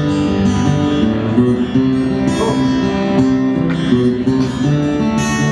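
Strummed acoustic guitar playing a song's instrumental intro at a live show, with notes changing every half second or so.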